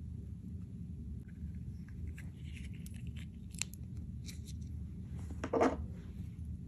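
Slime and makeup being handled: small sticky clicks and crackles, with one louder crunch near the end, over a steady low hum.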